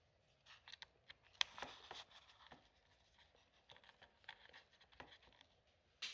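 Faint scattered clicks and scratches of small hand work on the laptop, with a sharper click about a second and a half in and another near the end.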